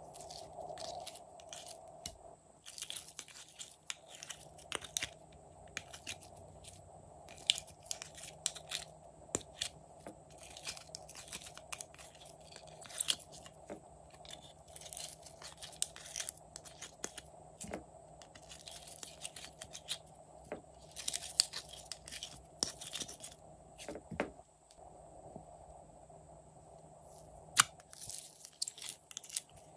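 Glitter slime being squeezed and peeled out of small plastic containers: irregular sticky crackles, pops and scrapes in clusters, with a sharp click a little before the end.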